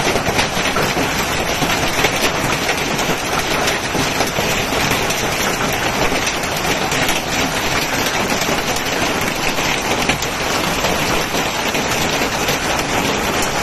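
Hail and heavy rain pelting down in a dense, steady clatter of many small impacts.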